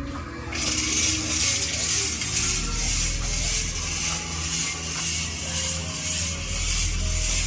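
Rhythmic hissing that starts about half a second in and pulses about twice a second, over a steady low hum and faint music.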